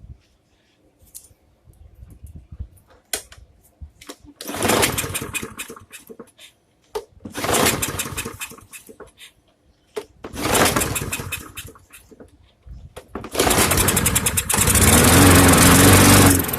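140cc Briggs & Stratton lawn mower engine being pull-started: three pulls turn it over without it keeping going, and on a fourth pull, about thirteen seconds in, it catches and runs steadily. It is running on carb cleaner sprayed into the intake, which points to a dirty carburetor.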